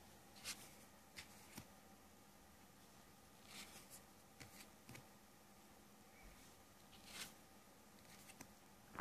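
Faint, brief swishes and soft taps of large paper cards from a Grand Jeu de Mlle Lenormand deck, slid one at a time off the stack and laid down, about seven or eight times at uneven intervals.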